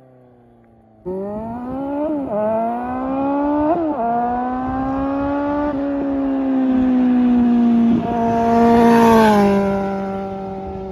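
Suzuki Bandit 1250's inline-four engine launching hard at full throttle. The revs climb through the gears, with three quick breaks at the upshifts. It is loudest just before the end, then the pitch drops and holds steady as the throttle is eased off.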